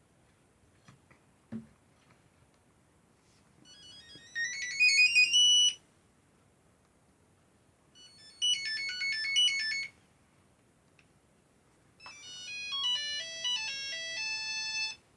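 Nokia 3110 mobile phone playing three short monophonic beeping ringtone melodies in turn, each two to three seconds long with a pause between them. The first, about four seconds in, climbs in pitch and is the loudest; a few faint clicks come before it.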